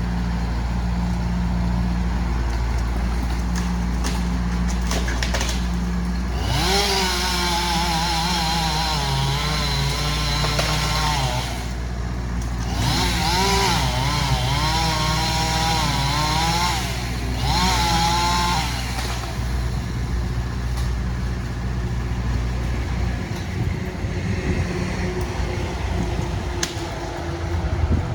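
A chainsaw revving and cutting in three runs, of about five, four and two seconds, its pitch wavering under load. Underneath, a vehicle engine idles steadily and stops near the end.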